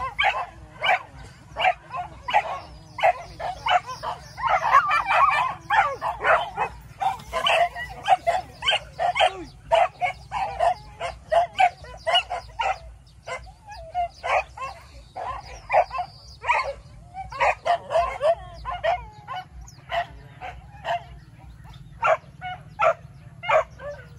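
Several hunting dogs barking and yelping rapidly and without let-up, the calls overlapping densely for a few seconds before thinning a little: a pack on a wild boar chase.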